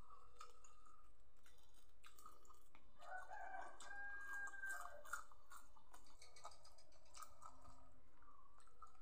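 Close mouth sounds of a man chewing a handful of rice and fish, with wet clicks and crunching throughout. A rooster crows once, starting about three seconds in and lasting a couple of seconds.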